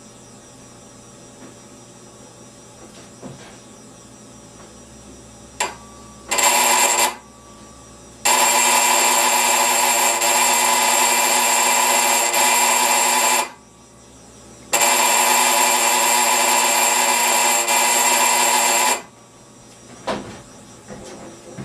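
Vintage electric doorbell ringing very loudly and harshly: one short ring, then two long rings of about five and four seconds each.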